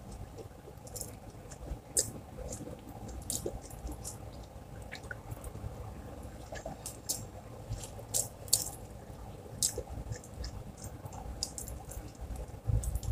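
A person chewing and eating rice and fried fish by hand: mouth sounds and chewing as irregular short clicks and smacks, several a second.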